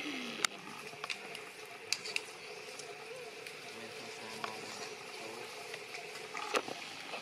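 Steady hum of forest insects, with a few sharp clicks and crackles scattered through it; the loudest click comes about half a second in, and another near the end.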